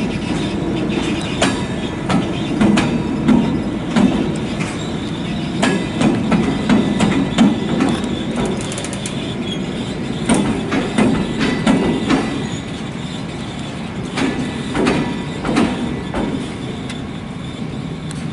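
Taiwan Railway E500 electric locomotives, unpowered and being hauled as freight, rolling slowly over the track: steel wheels clicking and clanking irregularly over rail joints and points, over a low rumble.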